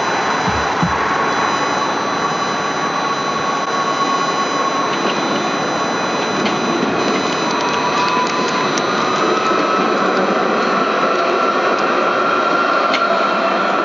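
Tram running on the line: a steady rush of noise with a high whine that rises a little in pitch about halfway through, and a few light clicks.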